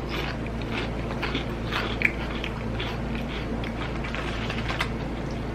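Someone chewing crunchy wavy potato chips, with small irregular crunches over a low steady hum.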